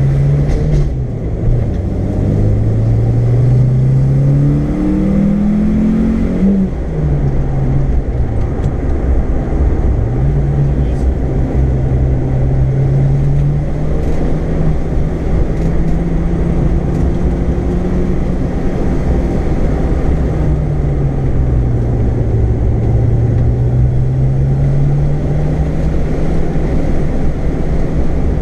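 Race car's engine heard from inside the cabin, revving up and dropping back several times in the first ten seconds as it accelerates and changes gear, then holding a steadier drone with a slow dip and rise near the end, over constant road and tyre noise on a wet track.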